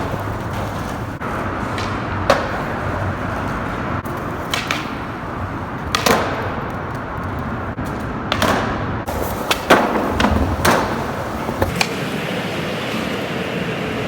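Skateboard wheels rolling over concrete with a steady rumble, broken by several sharp clacks of the board hitting the ground during tricks and landings.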